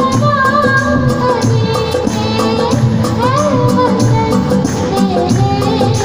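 A girl singing a Hindi film song live through a microphone and PA, with a sliding, ornamented melody over a steady drum rhythm from the dholak and keyboard accompaniment.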